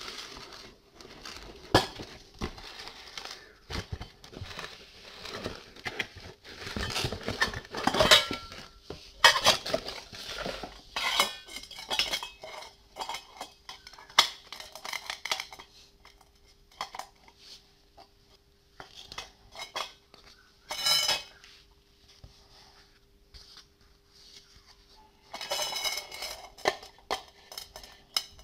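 Stainless steel hand juicer parts clinking and knocking together as they are handled, the reamer set on the perforated strainer bowl, with irregular clatter and handling noise.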